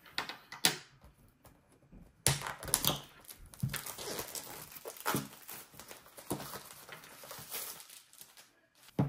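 Clear plastic shrink wrap being torn and peeled off a small cardboard product box, crinkling in a series of short, sharp bursts.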